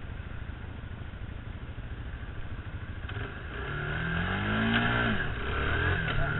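Kawasaki Bayou 220 ATV's single-cylinder four-stroke engine running as it rides, then revving up about three and a half seconds in and dropping back a second or so later.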